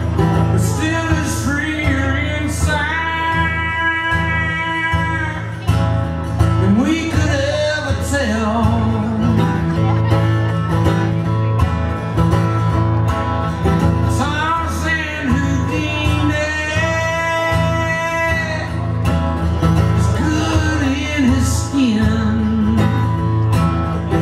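Live country band playing, with strummed acoustic guitar under it. A lead line slides up into long held notes twice, once near the start and again midway.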